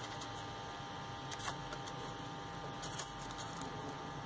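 Faint crinkling and crackling of crepe paper as fingers crimp the edge of a petal, a few soft crackles over a steady background hum.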